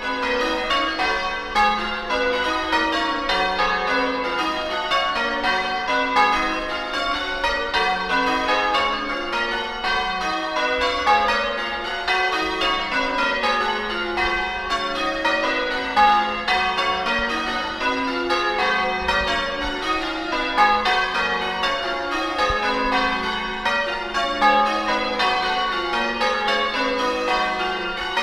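A peal of church bells: several bells of different pitch struck one after another in quick succession, their ringing overlapping and running on without a break.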